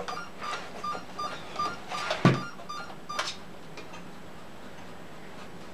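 Short electronic beeps repeat about three times a second and stop about two seconds in with a sharp knock. A click follows as the RC car is handled.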